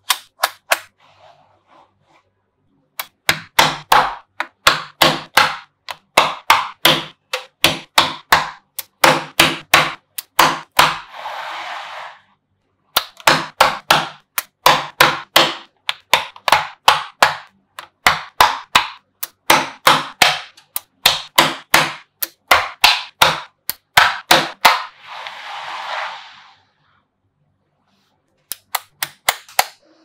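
Small magnetic balls snapping together: runs of sharp clicks, about three to four a second, as rows of balls are pressed into place. Twice a short hiss of about a second breaks in.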